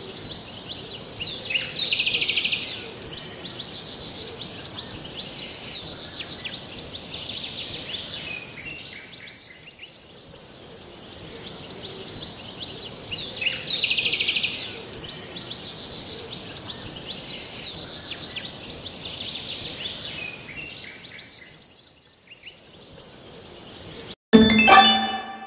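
Background ambience track of birds chirping over a steady hiss, the same stretch repeating about every twelve seconds. It cuts off near the end and a bright chime-like ding begins.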